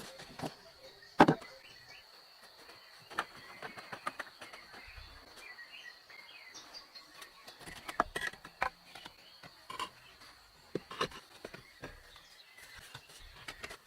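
Irregular sharp knocks and clicks, the loudest about a second in, over a thin steady high-pitched tone and faint bird chirps.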